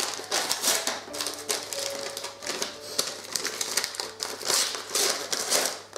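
Envelope being torn open and handled: irregular rustling, crinkling and tearing of the paper.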